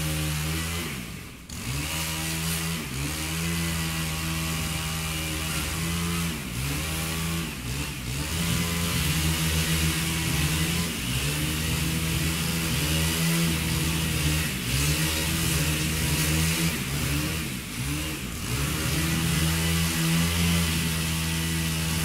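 Chainsaw running continuously, its pitch dipping and climbing back again and again. It nearly drops out briefly about a second in.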